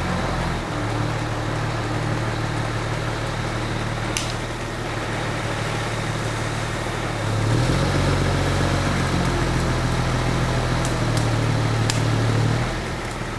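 Crane engine running steadily, revving up to a higher pitch about halfway through as it takes up work, then dropping back near the end. A few sharp clicks come through over it.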